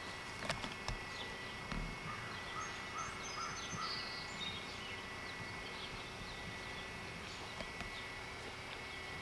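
Quiet outdoor ambience with a few short bird chirps a few seconds in, over a steady hiss and a constant faint high tone.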